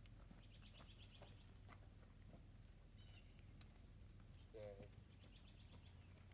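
Faint songbird trill, a quick run of repeated high notes lasting about a second, heard twice: near the start and again near the end, with a short chirp between.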